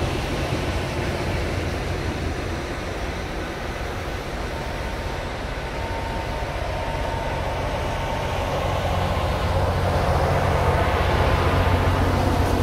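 Loram rail grinding train rolling past close by, a steady rumble of its engines and wheels on the rail, growing louder near the end.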